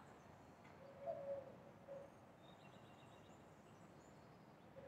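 A dove cooing faintly, a longer low coo about a second in and a short one just before two seconds, starting again at the very end. Brief faint high chirps of a small bird come in between, over a steady hum of distant city noise.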